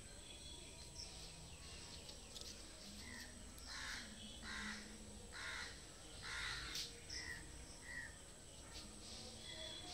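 A crow cawing, a run of about half a dozen harsh calls between about three and eight seconds in, with a few brief chirps from small birds.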